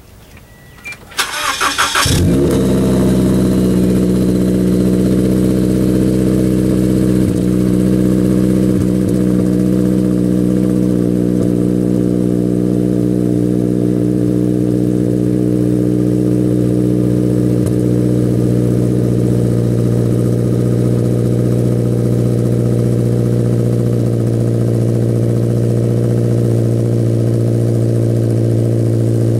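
A 2014 Scion FR-S's flat-four engine is cold-started through a Borla header-back straight-pipe exhaust. The starter cranks briefly about a second in, then the engine catches and settles into a loud, steady idle.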